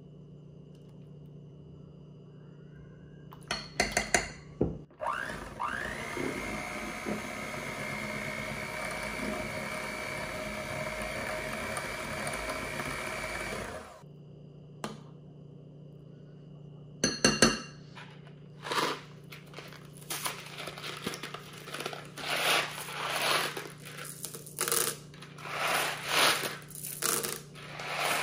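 Electric hand mixer clicking on and whirring steadily for about nine seconds, its pitch climbing as it spins up and then holding as it beats a cream cheese batter, before cutting off suddenly. Later come a few clicks and a run of short crinkling and rustling sounds as candy packets are opened.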